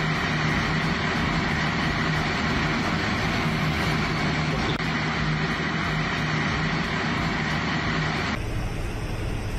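Large oil refinery fire burning: a steady rushing noise with a constant low hum underneath. The sound changes abruptly near the end.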